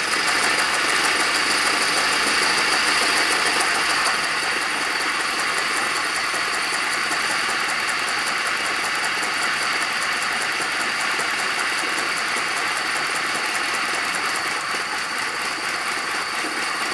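Aster live-steam model of a BR 52 steam locomotive running in place on a roller stand, on its first steaming: rapid, even exhaust beats over a steady hiss of steam.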